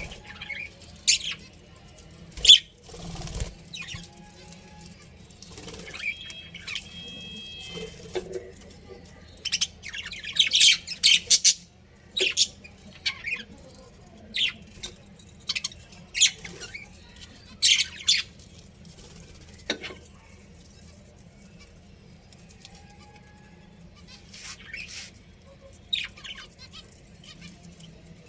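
Budgerigars in a colony giving short, sharp chirps and squawks at irregular intervals, with a quick flurry of chattering about ten seconds in and a quieter spell later on. A steady low hum runs underneath.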